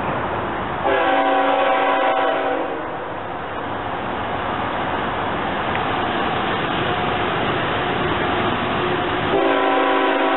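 CSX ET44AH freight locomotive's horn sounding two long blasts, one about a second in and another near the end, with steady train noise between them as it approaches.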